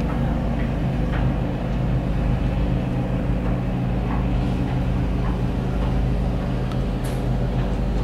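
Steady low hum and rumble inside a cable car gondola cabin as it rides along its cable.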